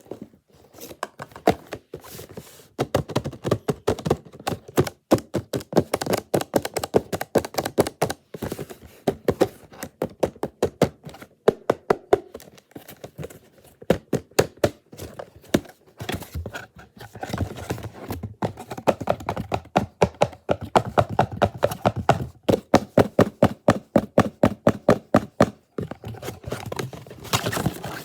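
A plastic Rubik's-type puzzle cube being turned quickly, its layers clicking and clacking in fast, irregular runs broken by short pauses.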